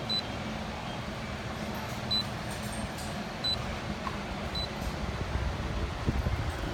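Four short, high electronic beeps, a second or two apart, over a steady low hum.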